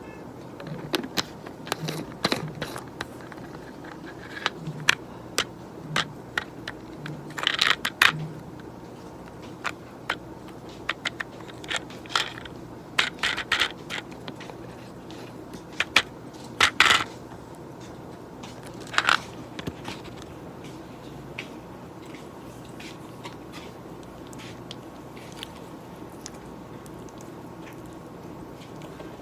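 Irregular taps, clicks and short crunchy rattles of small objects handled close to the microphone at a desk, in scattered clusters that thin out over the last few seconds.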